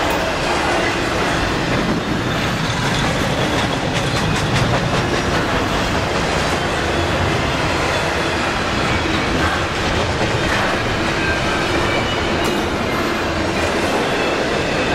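Double-stack container train's well cars rolling past at speed: a steady noise of steel wheels on rail with occasional clicks and clatter.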